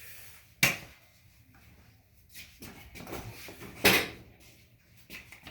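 Two sharp clunks, about a second in and again about four seconds in, with faint handling noise between them, as a motorcycle's front wheel is taken out from between the forks.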